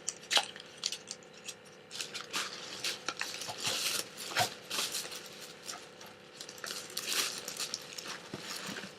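Packaging being handled and opened: a run of small clicks and taps mixed with bursts of rustling.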